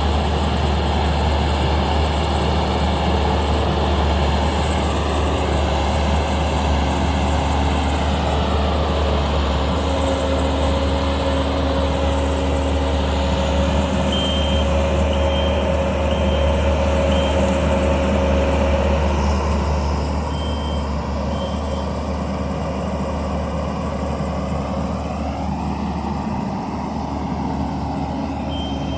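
Kubota skid steer's diesel engine running steadily while it works, with its reversing alarm beeping in short runs partway through and again near the end.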